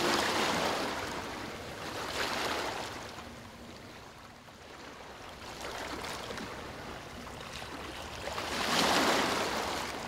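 Sea surf: waves washing in and drawing back in slow swells, four in all, the last one the loudest near the end.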